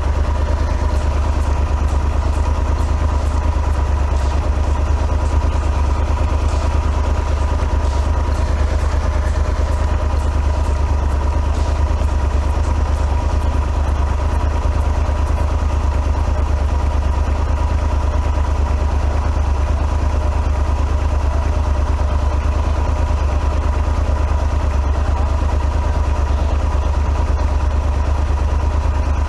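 Large adventure motorcycle's engine running steadily at an even pace, with no change in speed.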